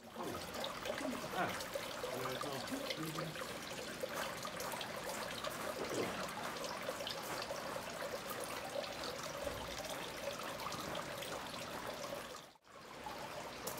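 Spring water trickling and splashing from a pipe into a stone basin, steady, with a brief break near the end.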